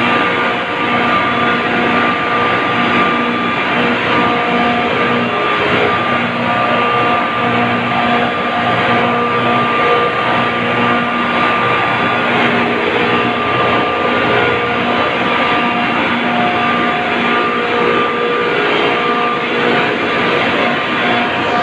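Industrial ammonia-plant-style refrigeration compressors (Mycom and Sabroe) running in a machine room: a loud, steady mechanical din with several constant hum tones through it.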